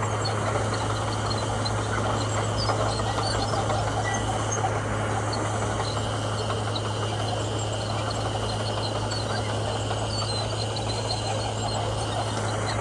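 Komatsu bulldozer's diesel engine running steadily with a constant low drone, with scattered short high chirps over it.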